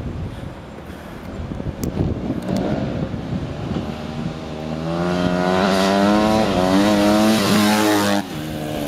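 2008 Honda CRF250 dirt bike's four-stroke single-cylinder engine revving as the bike rides up and passes close by. It grows louder from about five seconds in, with a brief dip and recovery in revs, then drops suddenly in level and pitch as it goes past near the end.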